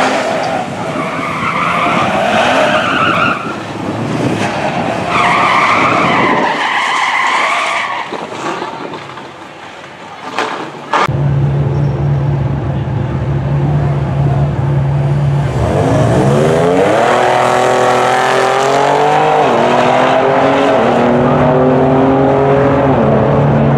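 Cadillac ATS-V doing a burnout, tyres squealing in bursts for the first several seconds. After a cut, the twin-turbo V6 engines idle at the starting line, then launch about 16 s in and rev upward through upshifts as the cars accelerate down the drag strip.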